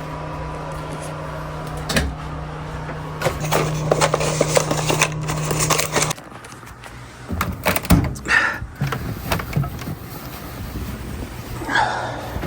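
A steady low mechanical hum that cuts off about six seconds in, with knocks, clatter and rustling of handling around it.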